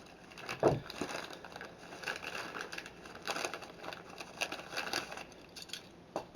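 Packaging being handled and unwrapped, with irregular rustling and crinkling and one louder knock about two-thirds of a second in.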